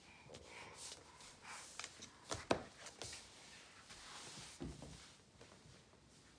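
Scattered light taps and knocks with soft rustling: a baby's hands and knees on a wooden tabletop and her clothing moving as she crawls. One sharper knock comes about halfway through and a dull thump shortly after.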